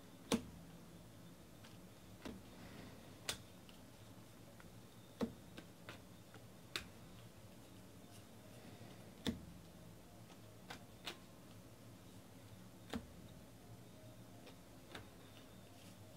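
Baseball trading cards being flipped through by hand, each card slid off the stack with a light click: about a dozen irregular clicks over a faint steady hum.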